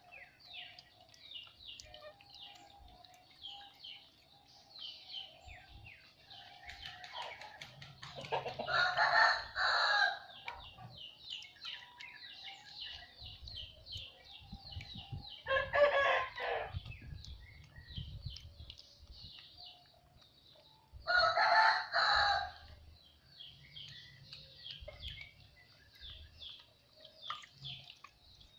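A rooster crows three times, each crow lasting about two seconds, spaced roughly six seconds apart. Under the crows, small birds chirp rapidly and high.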